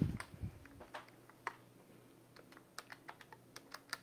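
Calculator keys being pressed one at a time to work out a sum: faint, sharp clicks, scattered at first and coming faster in the second half. A low thump is heard right at the start.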